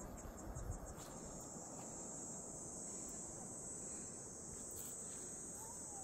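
Crickets trilling: quick high-pitched chirps that run together into one unbroken trill about a second in, over a low rushing background. A brief low bump comes less than a second in.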